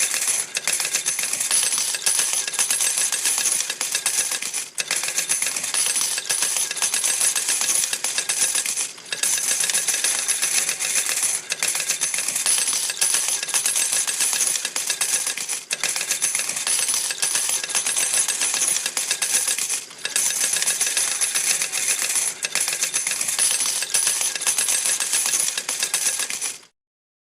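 Coins from a slot machine payout clattering in a dense, rapid stream of metallic clinks with a bright ringing, in long runs broken by brief pauses every few seconds, stopping suddenly near the end.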